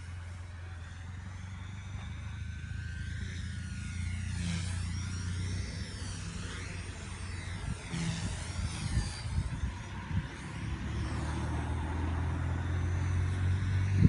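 WLToys V977 electric RC helicopter whining overhead, the pitch of its motor and rotors sweeping down and back up several times as it manoeuvres. Under it runs a low wind rumble on the microphone that becomes gusty in the second half.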